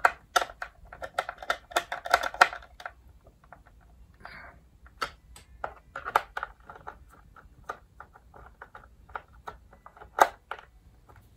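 Hand screwdriver tightening screws into the plastic base of a Shark Rotator vacuum's floor nozzle: a run of irregular small clicks and scrapes.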